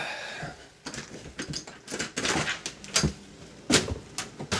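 A door being opened onto a porch, with rustling and clunks of the handle and door, then several sharp knocks and clatters, the loudest about three seconds in and twice more near the end.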